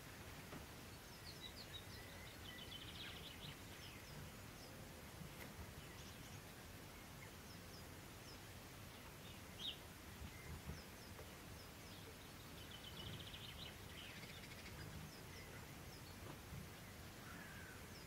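Faint garden birdsong: scattered short chirps and a rapid trill of repeated notes twice, about three seconds in and again near thirteen seconds, over quiet outdoor background hiss.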